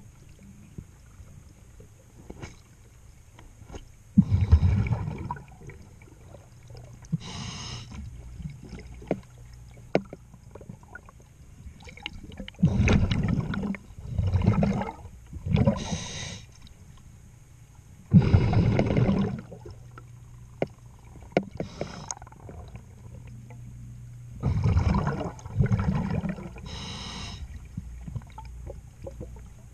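A diver breathing through a regulator underwater: a breath every few seconds, some paired as inhale and exhale, with rushing and bubbling from the exhaled air. A faint low hum sits beneath the breaths.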